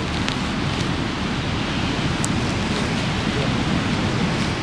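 Steady low rushing noise from the beach, with one faint high click about two seconds in.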